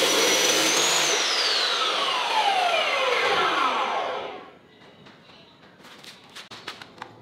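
Abrasive cut-off saw finishing a cut through flat steel bar, then switched off: its high whine falls steadily in pitch as the blade spins down and fades out after about four seconds. A few faint clicks follow as the cut steel piece is handled.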